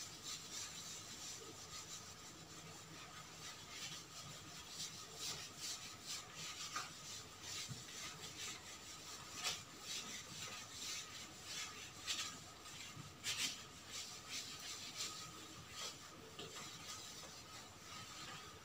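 Marker pen writing on a whiteboard: faint, irregular scratchy strokes and rubs as the words are written out.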